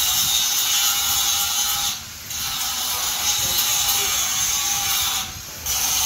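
Corded angle grinder grinding a steel frame: a loud, steady, high grinding noise that drops away briefly twice, about two and five seconds in, as the disc eases off the metal.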